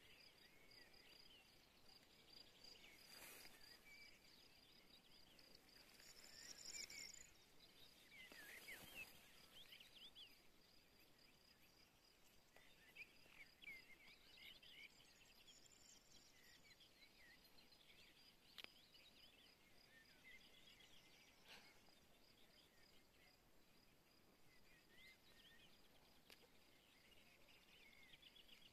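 Near silence: faint outdoor meadow ambience with small bird chirps now and then and a faint steady high whine, plus a few soft handling rustles.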